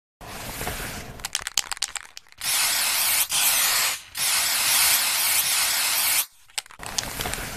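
Aerosol spray-paint can sound effect: a quick run of rattling clicks, then three loud hisses of spray, the last about two seconds long. A softer hiss with a few more clicks follows near the end.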